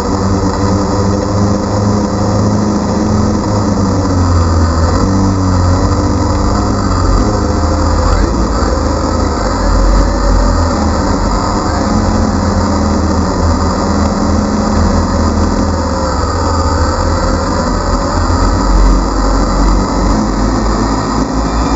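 DJI Phantom quadcopter's motors and propellers whirring close to the microphone, their pitch wavering as the drone manoeuvres, with wind rumbling on the microphone.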